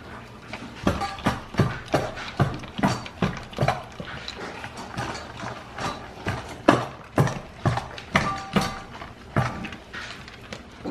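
Dog eating dry food from a plastic slow-feeder bowl: irregular crunches and clacks of food and muzzle against the plastic, about two a second.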